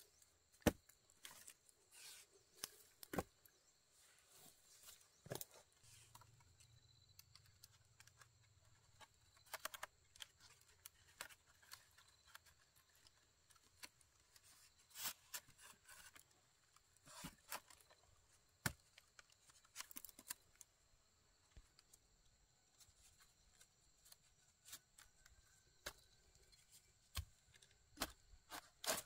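Scattered faint clicks and snaps at an irregular pace, over a faint steady high-pitched hum.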